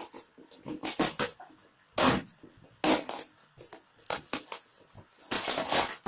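Packaging being handled and torn open: irregular bursts of crinkling and ripping, with a longer rip near the end.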